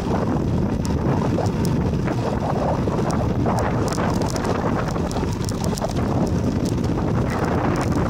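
Wind buffeting the microphone of a camera moving along a rough, cracked road: a steady low rumble with scattered light clicks.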